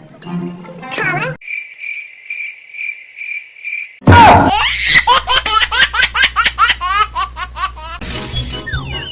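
Cricket chirping sound effect, a steady high pulsing chirp, then about four seconds in a loud burst of laughter whose short syllables repeat quickly and evenly for about four seconds.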